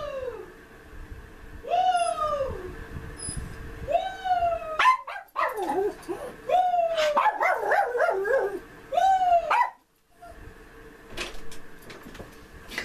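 A small dog whining and howling, one rising-then-falling cry about every two seconds, with a run of overlapping yelps in the middle. A few door-latch clicks near the end as the door opens.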